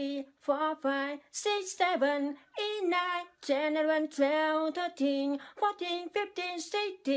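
A man's high-pitched voice singing short, quick, unaccompanied phrases in a sing-song chant, the pitch held near one note with small wobbles.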